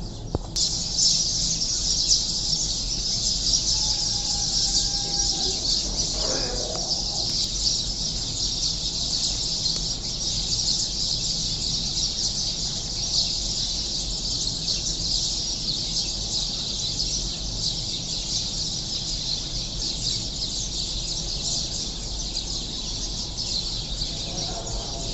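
A flock of sparrows chirping together in a dense, continuous chorus of high chirps, with a separate, lower bird call about five seconds in.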